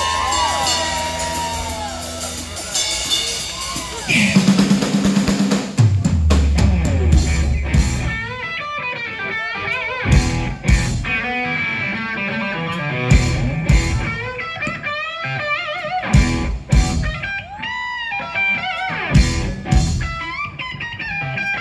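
Live rock band: an electric guitar plays a lead line of bent, wavering notes over drums, with drum hits throughout and a heavy low note in the first few seconds.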